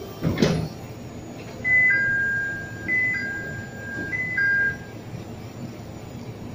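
A Toyota forklift's warning chime sounds three times while it reverses: each chime is a short high note dropping to a longer lower one, a little over a second apart. A sharp clunk comes just before, about half a second in.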